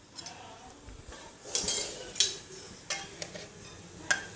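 A metal spoon clinking and scraping against a wok in about six separate taps as sugar is tipped into the slime mixture.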